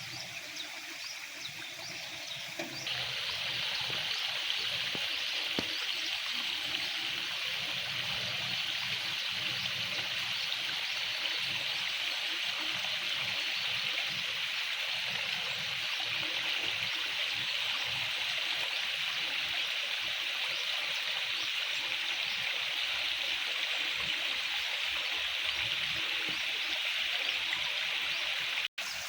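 Steady water trickling and running, as in a paddy field's flowing water, getting suddenly louder about three seconds in and then holding even, with a momentary cut-out near the end.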